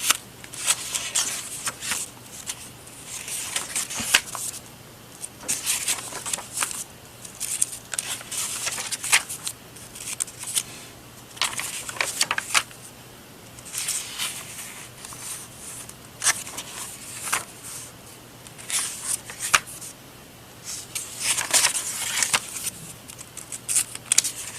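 Sheets of paper rustling and sliding as they are handled, shuffled and laid down by hand, in irregular bursts every second or two.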